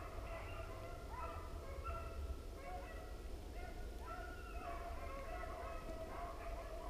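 Beagles baying in overlapping, drawn-out notes, the voice of hounds running a rabbit, over a steady low rumble.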